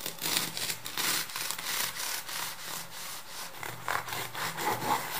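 Knife sawing down through the crisp baked topping crust of a Mexican coffee bun, with repeated scraping, crunching strokes as the blade works back and forth into the bread.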